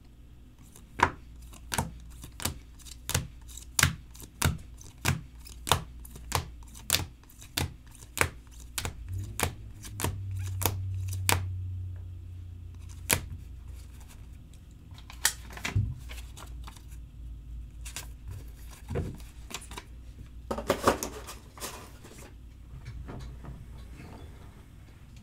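Rigid plastic top loaders holding trading cards clicking against each other and the table as they are handled and stacked. There is a sharp click about every two-thirds of a second for the first half, then a few scattered clicks and a short burst of rustling later. A low hum swells for a few seconds in the middle.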